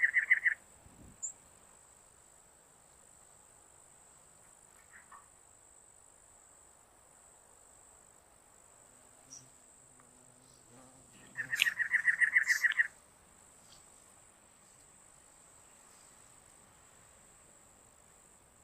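Cactus wren calling: a rapid run of harsh, chugging notes that ends just after the start and comes again once for about a second and a half roughly eleven seconds in. A steady high insect buzz runs underneath.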